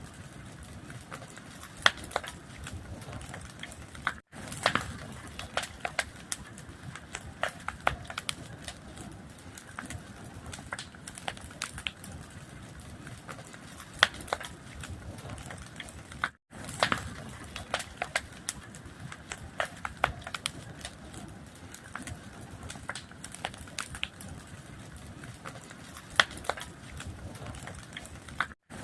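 Wood fire crackling, with a steady hiss under frequent irregular pops and snaps. The sound cuts out for an instant three times, about every twelve seconds.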